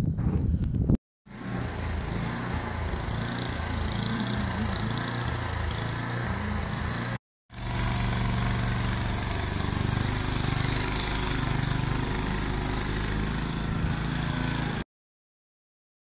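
Small gasoline snowblower engine running steadily while throwing deep snow, then cutting off abruptly near the end. Before it, after a brief gap about a second in, come several seconds of similar steady mechanical noise.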